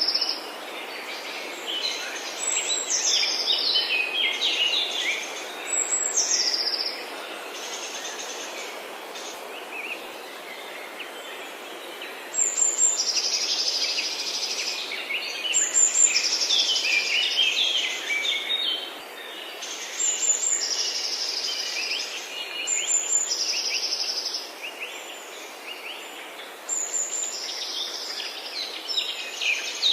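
Forest birds singing: one songbird repeats a short phrase every few seconds, a high opening note dropping into a rapid trill, with fainter chirps between. Under it is a steady background hiss, and the singing pauses for a few seconds partway through.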